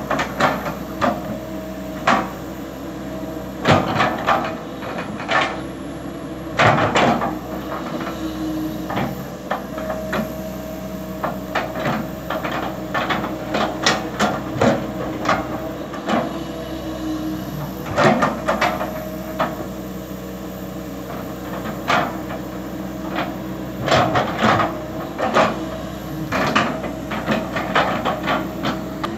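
Komatsu PC200LC hydraulic excavator's diesel engine running steadily under load while the bucket digs soil and stones, with frequent irregular clanks and knocks from the bucket and boom working.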